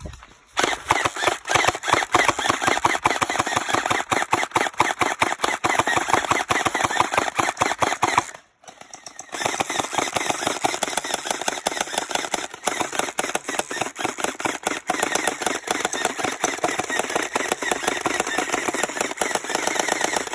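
Gel ball blaster firing rapid shots in long strings, with a break of about a second near the middle, as its last half magazine is emptied.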